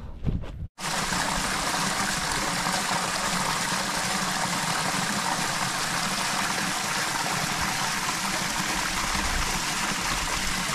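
Small waterfall splashing steadily down over boulders into a shallow rock pool, starting about a second in.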